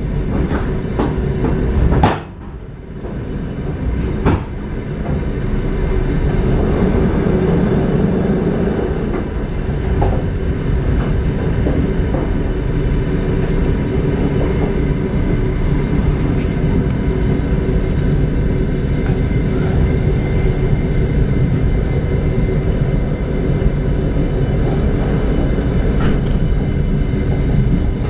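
Moving train heard from inside a carriage: a steady rumble of wheels on rails, with a few sharp clicks in the first few seconds and a brief drop in loudness about two seconds in.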